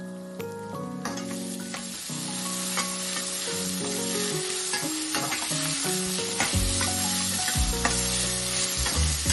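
Chopped onions sizzling in hot oil in a stainless steel kadai while a spatula stirs them, with scattered scrapes and taps against the pan. The sizzle picks up about a second in and grows gradually louder.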